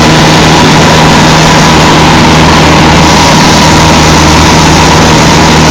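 Cessna 152's four-cylinder Lycoming piston engine and propeller running steadily and loudly, with an even drone.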